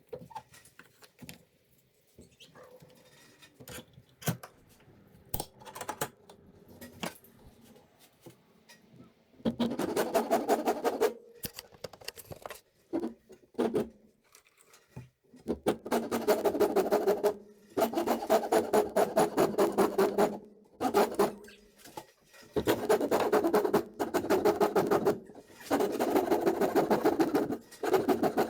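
A tool working a solid oak table leg into a hatchet handle. At first there are faint scattered taps and scrapes. About a third of the way in come loud stretches of rapid, rhythmic rasping strokes, each lasting one to two seconds, with short pauses between them.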